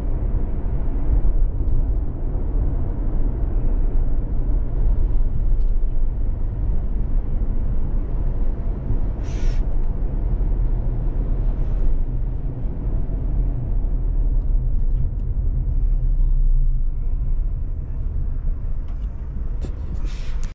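Car on the move: a steady low rumble of engine and road noise, with a short hiss about nine and a half seconds in.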